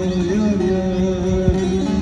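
Turkish folk music played live on a bağlama (saz), its plucked strings amplified through a small portable speaker, with a man singing a long held note over it.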